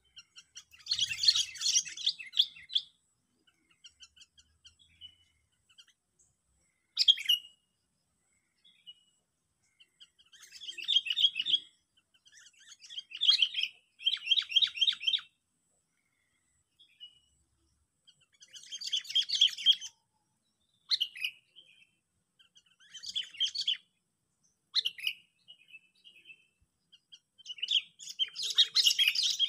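Decoy songbird (pikat) calling in bursts of rapid, chattering chirps. About eight bursts of one to two seconds come through the stretch, with single short chirps in the gaps between them.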